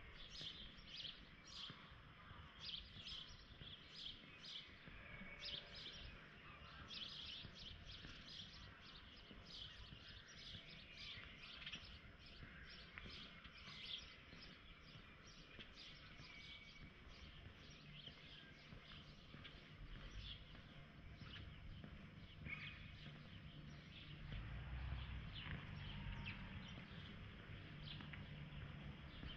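Small birds chirping, many quick high chirps in a row, thickest in the first half. A faint low rumble builds up in the second half.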